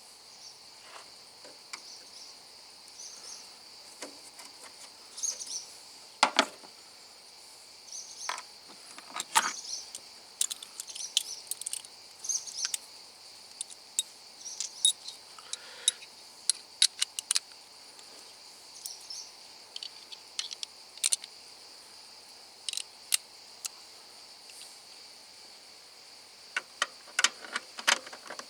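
Steady high-pitched insect chirring, with scattered sharp clicks and clatter throughout.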